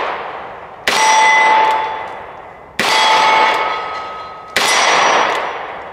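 Taurus 692 Tracker revolver firing .38 Special rounds single action, three shots about two seconds apart, each echoing away. The second and third shots leave a short metallic ring.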